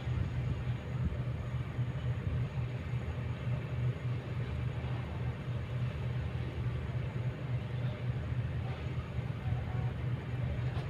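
Kobelco excavator's diesel engine running steadily, a low drone that rises and falls slightly as the machine works.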